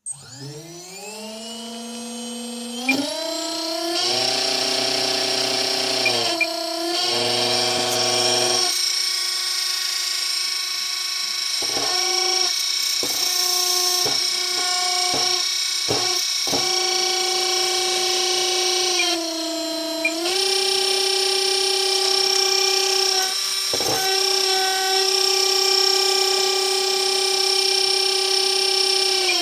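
RCTimer 1806 2300kV brushless motor spinning up from rest and running with a high whine, its pitch stepping up and down as the throttle changes, with a few brief clicks in the middle. The owner calls it a bad motor.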